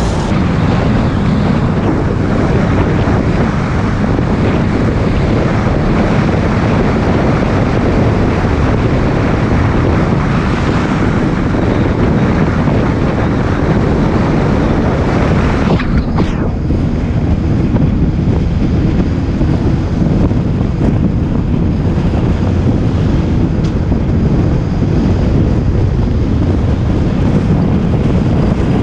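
Wind rushing over the microphone of a moving bus, over a steady rumble of road and engine noise. The upper hiss briefly drops away a little past halfway.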